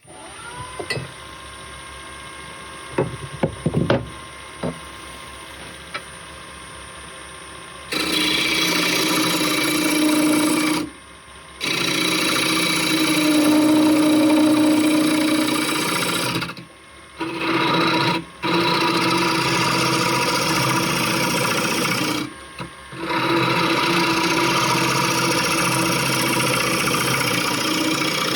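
A wood lathe starts up and runs with a steady hum, with a few knocks about three to four seconds in. From about eight seconds a turning tool cuts the spinning laburnum blank in long, harsh scraping passes, broken by brief gaps as the tool lifts off.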